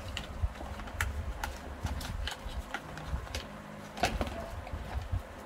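Handling noise: irregular light clicks and taps with low bumps, as a small unboxed item and its packaging are handled.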